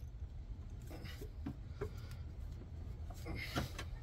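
Faint light clicks and scrapes of a steel socket and extension being worked loose by hand from a shock-mount bolt.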